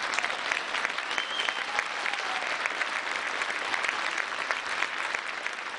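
Theatre audience applauding at the end of a musical number.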